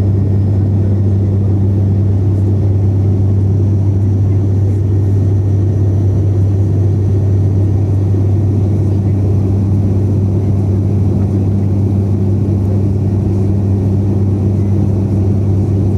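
Cabin noise of an ATR 72-600 turboprop in flight, heard from the seat beside the propeller: the Pratt & Whitney PW127 engine and its propeller running steadily, a loud low drone with a deep hum.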